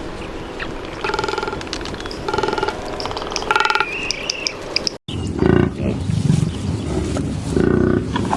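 Lion calling: three short pitched calls about a second apart, then after an abrupt cut, different louder animal calls.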